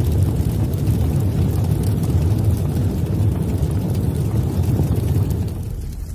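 Low, steady rumble of an explosion-style intro sound effect, fading out near the end.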